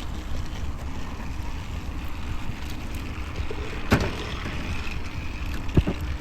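Wind rumbling on the microphone, with two sharp knocks, one about four seconds in and another near the end.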